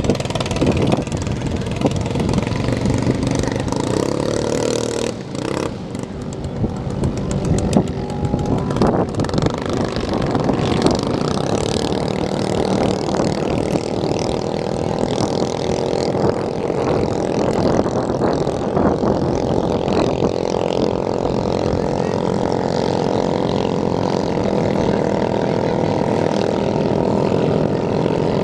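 Small racing boat engines running at high revs, with the engine note holding steady through the second half.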